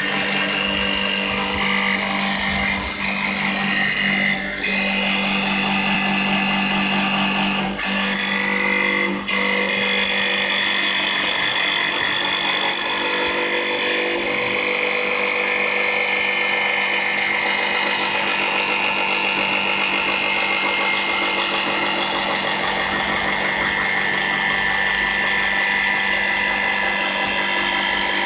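CNC wood turning lathe at work, its 3.5 kW air-cooled spindle running steadily as it machines wood. The sound holds steady throughout, with a few brief dips in the first ten seconds and a low hum that drops out about eight seconds in.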